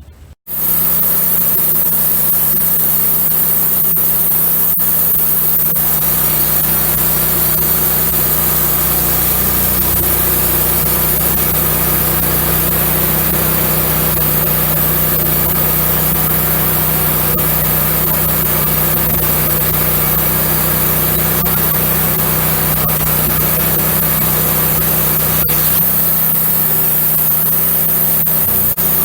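Wood-Mizer LX150 portable bandsaw mill running steadily at full throttle as its band blade cuts through an oak log: even engine noise under a high hiss. It starts suddenly about half a second in.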